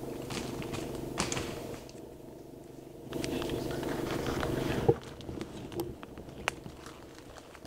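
Brush rustling and dry sticks snapping underfoot as someone moves through fir timber, with several separate sharp cracks in the second half.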